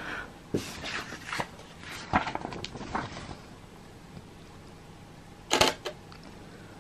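Canon 90D DSLR being handled, with a run of small clicks and button presses. About five and a half seconds in comes the louder, quick mechanical clatter of its shutter firing.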